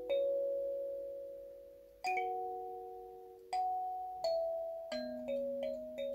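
17-key wooden kalimba plucked with the thumbs: chords of several notes struck together and left to ring and die away, one every second or two, then quicker single notes from about five seconds in.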